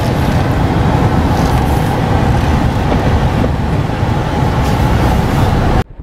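Vehicle driving along an asphalt-paved road: a steady, loud run of engine and road noise that cuts off abruptly near the end.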